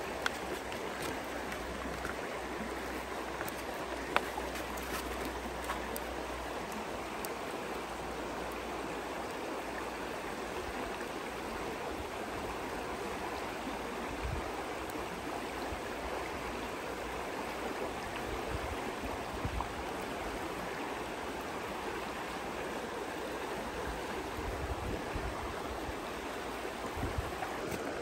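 Steady rush of a flowing stream, with a few sharp clicks from a knife on a wooden cutting board.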